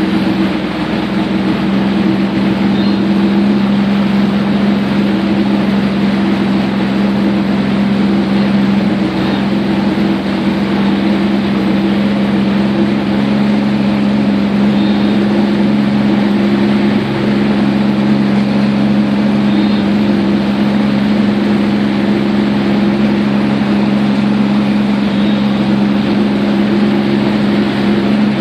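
Personal watercraft engine running steadily at low, cruising speed, a constant drone.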